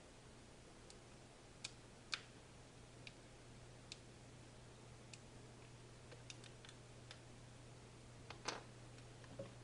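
Plastic screw cap of a Milkis bottle being twisted open: a scatter of faint, sharp plastic clicks, the loudest one near the end.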